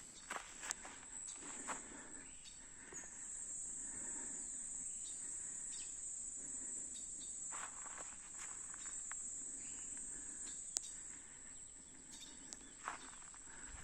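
Steady high-pitched insect chorus buzzing in rural vegetation, swelling for most of the middle and easing near the end, with a few scattered soft clicks and rustles.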